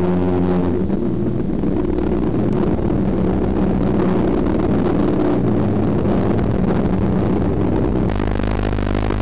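A car engine running hard at speed, its pitch holding fairly steady.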